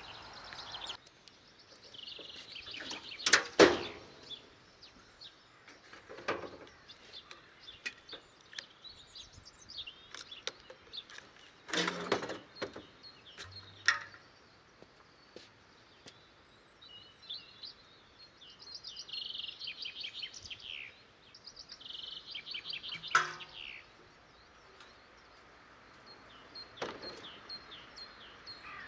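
Small birds chirping and singing, broken by several sharp knocks and clunks, the loudest a few seconds in.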